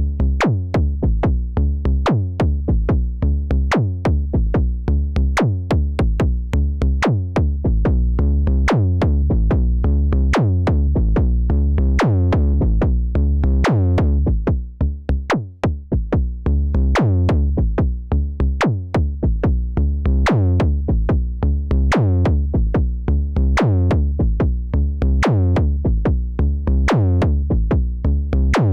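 KORG Volca Kick analog synthesizer playing a sequenced loop: a fast run of clicky kick hits over a deep, booming bass line. The pattern briefly thins out about halfway.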